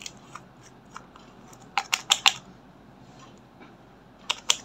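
Sharp clicks and taps as a nail polish bottle's cap and brush are worked open and handled: a quick run of about four clicks near the middle and two more near the end.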